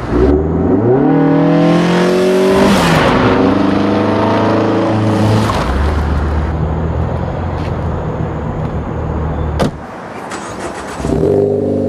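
Ford Focus ST's turbocharged 2.0-litre EcoBoost four-cylinder with a Cobb exhaust, revved twice, the pitch climbing and falling back, then holding a steadier note. About ten seconds in there is a sharp click and the sound drops quieter, then it revs up again near the end.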